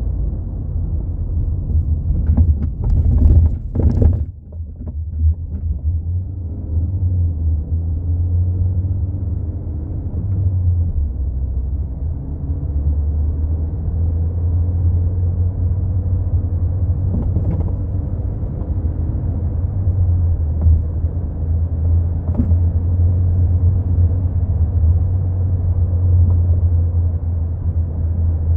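Steady low road rumble inside a moving MK4 Volkswagen Golf, with sharp knocks from the rear suspension: a cluster about two to four seconds in, then single knocks later on. The knocking is the sign of a failing rear shock absorber.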